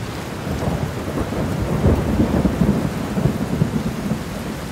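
A rolling rumble of thunder over steady rain, swelling to its loudest about two seconds in and then easing off.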